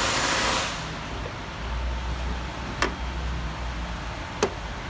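A burst of hiss lasting under a second at the start, then a low steady hum with two sharp clicks, about three and four and a half seconds in.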